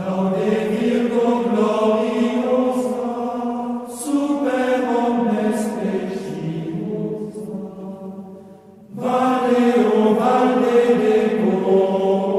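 Sung Latin chant in slow phrases of long held notes, with a short break about four seconds in and a longer pause near nine seconds.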